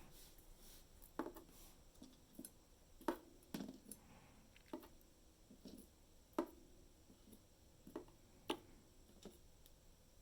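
Small metal lock parts being handled and set down on a hard surface: faint, irregular clicks and taps, about a dozen, some with a brief ring.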